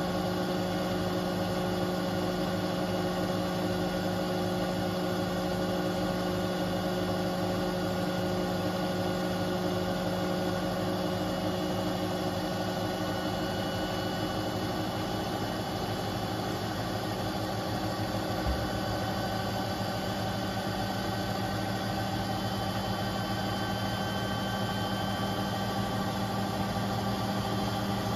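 Beko WTK74011W front-loading washing machine on a 1400 rpm spin-and-drain programme, its drum spinning at high speed. Motor and drum give a steady hum with a whine over it.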